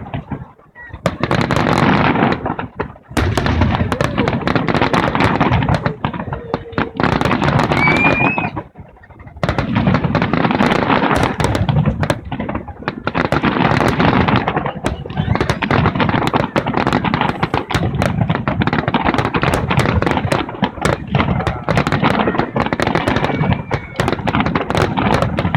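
Fireworks going off in quick succession: a dense run of bangs and crackles, with a few short lulls.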